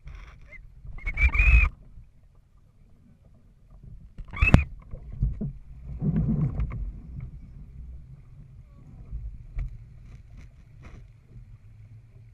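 Small sailing dinghy under way: water sloshing against the hull and wind rumbling on the boat, with a few sudden knocks and brief high squeaks, the sharpest about four and a half seconds in.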